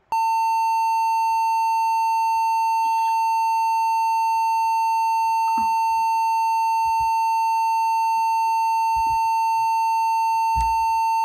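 A single steady electronic beep tone, high and unwavering, held without a break like a test tone or censor bleep. A faint low thump sounds under it near the end.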